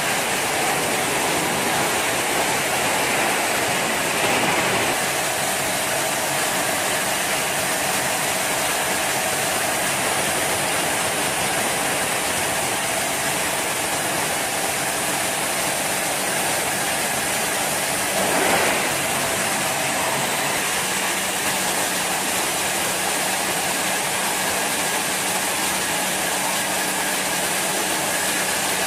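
Industrial crusher running steadily as it shreds washing machine shells, a continuous machine noise over a low hum, with two brief louder surges, one about four seconds in and one past the middle.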